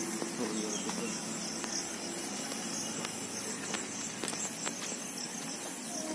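Steady high-pitched chorus of insects trilling from the grass, with a few faint clicks.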